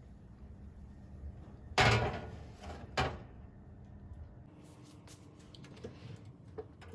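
Metal loaf tin set down on a metal oven baking tray: a loud clank about two seconds in, a second knock a second later, then lighter clicks and scrapes as the tray is pushed in on its rails.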